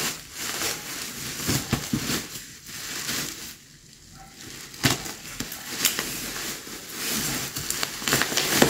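Scissors snipping through a plastic-wrapped parcel and the plastic crinkling and crackling as it is handled and pulled open. There is a lull about halfway, and the crinkling grows denser near the end as the wrapping is torn apart.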